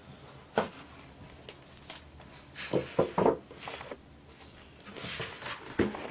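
Handling noises from unpacking a headphone box: scattered rustles and soft knocks of paper and plastic packaging and accessories, with a longer rustle about five seconds in.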